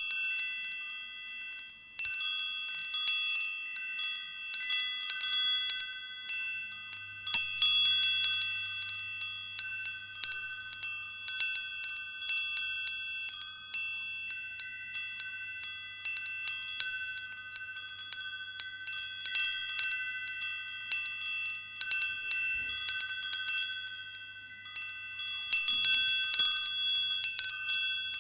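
Wind chimes ringing: several pitched notes struck at irregular moments, each ringing on and overlapping the others in a high, shimmering cluster.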